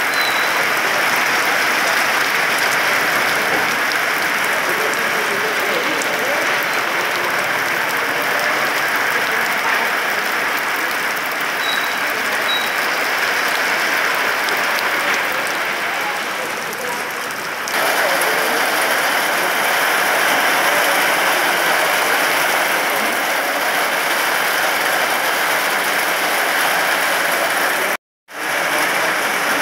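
Heavy rain pouring onto a wet street: a loud, steady hiss and patter of the downpour, cutting out for a moment near the end.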